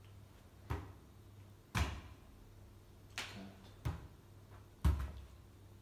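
Soccer ball bouncing on a carpeted floor: five dull thumps at uneven intervals, roughly a second apart.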